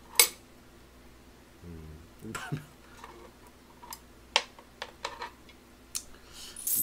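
Chopsticks clicking against a pot as ramen noodles are picked up: a sharp click at the start and a few more scattered single clicks, with a short low hum from the eater about two seconds in. Near the end comes a rising hiss as the noodles are slurped.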